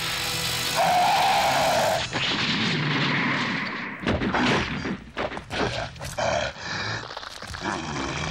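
Film fight sound effects: a monster's screech over crackling sparks, then, from about halfway, a quick run of sharp hits and crashes, with a short pitched creature cry and growls.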